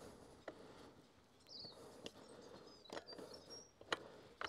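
Faint, scattered clicks and knocks of hands working at a motorcycle's rear wheel and brake caliper, the sharpest just before the end. A few short bird chirps can be heard.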